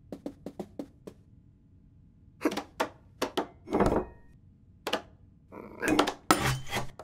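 Cartoon sound effects for a cat on the move: a quick series of light taps, then heavier thumps as it jumps onto a wooden table, and near the end a loud burst of scrabbling and clattering as it claws up a door and knocks a small vase off the table.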